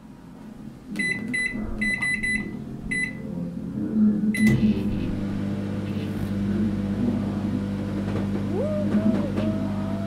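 Microwave oven being set and started: a run of short electronic keypad beeps, then a click as it starts running with a steady low hum. Near the end a faint wavering, rising-and-falling tone comes in over the hum.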